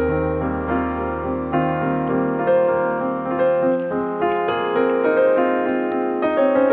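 Background piano music: a slow, gentle melody of held notes and chords.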